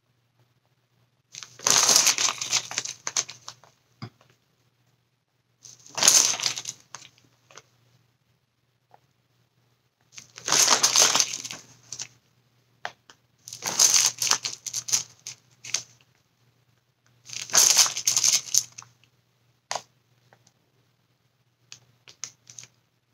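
Crinkling, rustling sounds of crinkly material being handled, in five separate bursts of a second or two each with quiet between.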